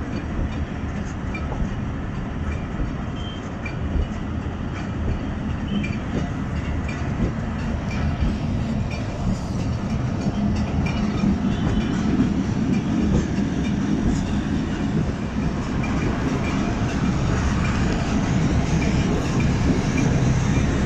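Passenger train coach rolling on the rails as the train pulls away from a station, a steady rumble of wheels and carriage with faint clicks, growing louder as it gathers speed. Heard at an open coach door.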